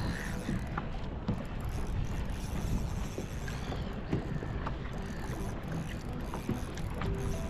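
Open-water ambience on a kayak: a steady rush of wind on the microphone and water against the hull, with scattered small knocks and ticks.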